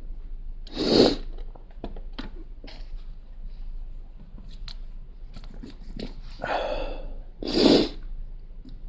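Plastic Lego pieces being handled and pressed together: scattered small clicks, with two louder rustles, one about a second in and one near the end.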